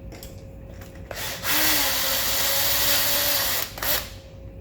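Electric drill running at speed for about two seconds, with a short blip just before it starts and another brief blip just after it stops.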